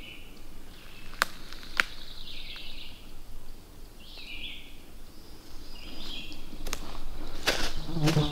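A songbird singing short phrases, one every second or two, over the hush of the woods, with two sharp clicks about a second in. Near the end, footsteps crunch through the leaf litter.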